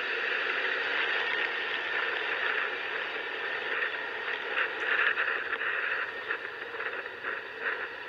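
Steady rushing road and wind noise from a motor scooter on the move, its engine running under it. From about halfway in there are several short knocks and rattles.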